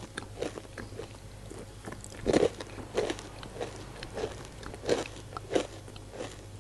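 A person biting into and chewing a crispy deep-fried semolina (rava) snack, giving loud crunches: a bigger crunch about two seconds in, then crunching at a steady chewing pace of about three every two seconds. The crunching shows the snack is fried fully crisp.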